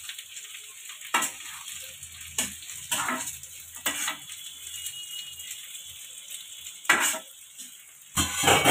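A steel spatula scrapes and clinks against a black iron kadai as paneer cubes, onion and green capsicum are stir-fried, over a steady sizzle of hot oil. The strokes come about once a second, and the loudest scraping is near the end.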